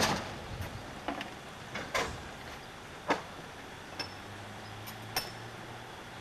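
Scattered metallic clanks and clinks, about seven single knocks a second or so apart, some with a short ring, from a railway worker handling iron gear at the front of a narrow-gauge steam locomotive. A faint low hum comes in during the second half.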